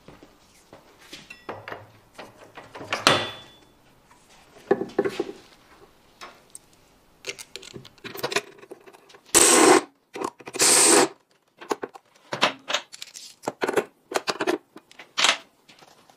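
Metal clinks and knocks of hand tools and bolts as a car's driveshaft is bolted back up to the transmission from underneath, with two loud rasping bursts of about half a second each a little past halfway.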